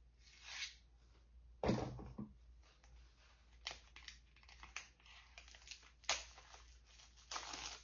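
Small product packaging being handled: light clicks and rustles, with a soft thump about two seconds in and a longer rustle near the end.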